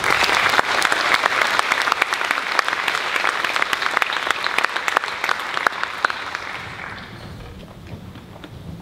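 Audience applauding a choir's performance, starting at full strength and thinning out over the last couple of seconds.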